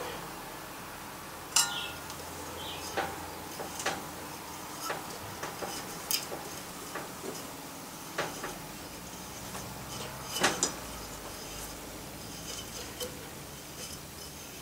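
Metal hand tools clinking and knocking as a tap and T-handle tap wrench are handled and set into a hole in a metal plate held in a bench vise. There are a dozen or so light separate clinks, with two louder knocks, one a couple of seconds in and one about ten seconds in.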